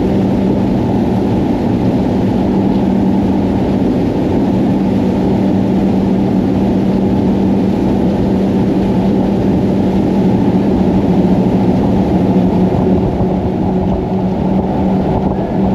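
Twin Mercury 450R supercharged V8 outboards on a boat running steadily at high speed, a constant drone over a rush of wind and water.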